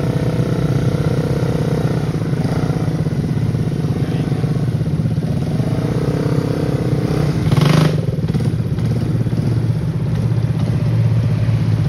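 ATV engine running steadily, with one short louder burst about eight seconds in.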